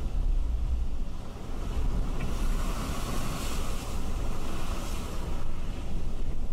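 Hurricane-force wind buffeting a camera microphone, heard as a deep rumbling pummel under a rushing hiss of wind and rain, with a stronger gust swelling about halfway through.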